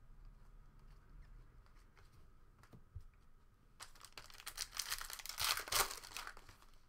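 Foil wrapper of a Panini Prizm basketball card pack being torn open and crinkled by hand. The tearing comes in a burst of about two and a half seconds starting a little past halfway, after a near-quiet stretch with one faint click.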